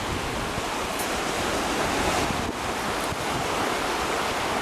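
Ocean surf washing against a rocky shoreline in a steady rush, with wind buffeting the microphone.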